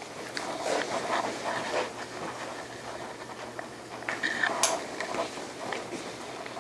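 Several people stepping and shuffling their feet on a hard classroom floor, with the rustle of clothing and some breathing, as a group moves out and back in.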